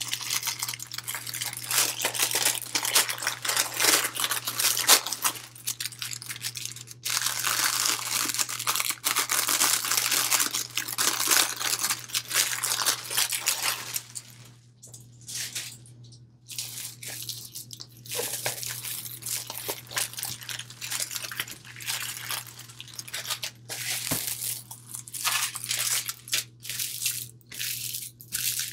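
Clear plastic wrapping crinkling and rustling as a rolled diamond painting canvas in its plastic sleeve is handled and unrolled. The crackling is dense for the first half, drops away for a couple of seconds just past the middle, then returns in shorter crackles.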